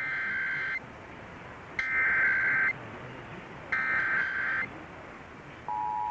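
Emergency Alert System SAME header for a Required Monthly Test: three short bursts of high-pitched warbling digital data tones, each just under a second long and about two seconds apart. Near the end the steady two-tone EAS attention signal begins.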